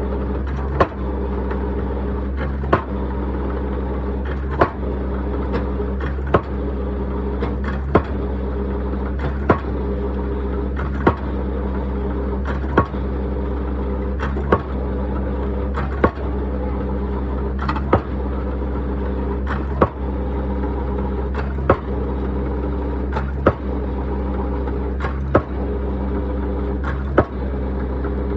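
Hammer striking a concrete pile with single sharp blows about every two seconds, over the steady running of a heavy machine's diesel engine.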